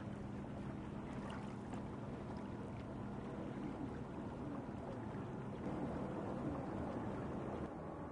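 Water washing against the hull of a felucca under sail, with wind on the microphone and a steady low hum underneath. The sound thins abruptly near the end.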